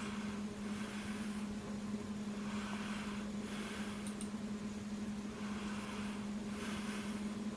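A steady low hum, with soft hissy swells coming and going about once a second.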